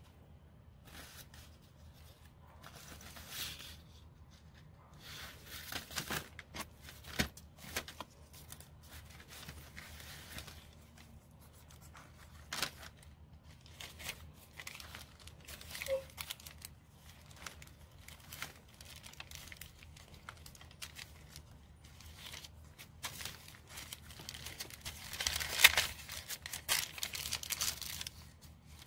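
Pages of a small hand-sewn journal of hand-dyed paper rustling and crinkling as they are turned and handled, with a few sharp clicks. It is loudest near the end.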